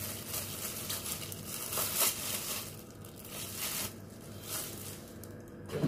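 Thin plastic disposable glove crinkling and rustling in several bursts as it is handled and peeled off a hand, with a soft thump near the end.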